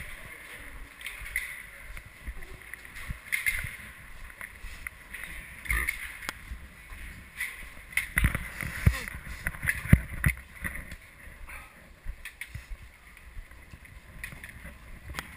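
Ski boots clomping on a metal grating walkway, with carried skis and poles knocking; a cluster of sharp knocks comes about eight to ten seconds in. People talk in the background.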